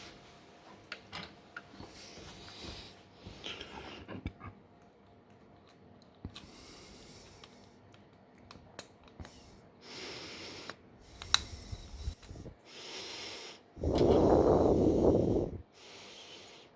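Handling noises from small-device repair work: scattered light clicks and ticks with short rustling, hissing rushes, and one louder rush of nearly two seconds near the end.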